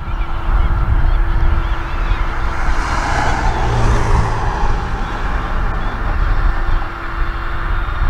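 A flock of gulls calling over the steady running of a New Holland T6.160 tractor's diesel engine as it pulls a plough.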